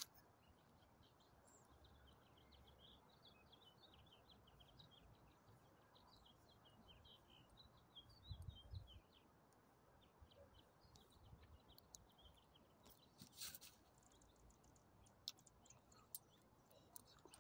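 Near silence with faint bird chirping: rapid, high chirps through the first half, then scattered clicks and a couple of soft low thumps.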